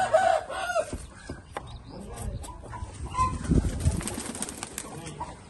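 Pigeons taking off, a flurry of wing flaps loudest about three and a half seconds in, after a short bird call at the start.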